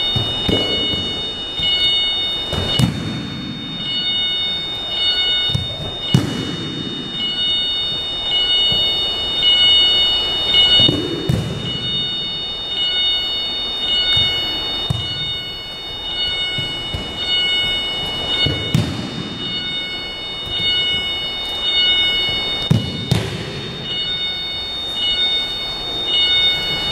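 Aikido partners taking breakfalls on a gym mat as they are thrown: heavy, dull body thuds every few seconds, ringing on in the hall, with lighter foot and cloth sounds between them.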